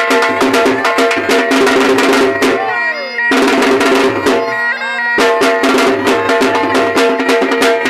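Dhol drum and been, a reed pipe with a steady drone, playing fast Saraiki dance music. The drumming drops out twice, about two and a half and about four and a half seconds in, leaving the pipe's sliding melody over its drone before the dhol comes back in.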